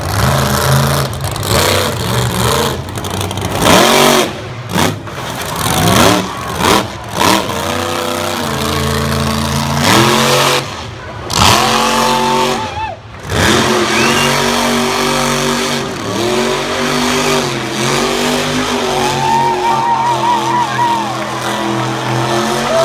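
Monster truck engine revving hard, its pitch climbing and falling again and again, with several sharp bangs during the first several seconds.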